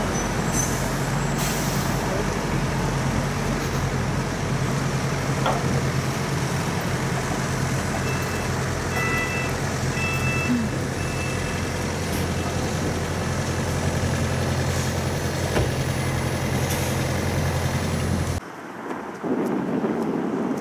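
London double-decker buses idling at a stop close by: a steady low engine drone, with a short hiss of air about a second and a half in and a few short electronic beeps around the middle. The drone cuts off suddenly near the end.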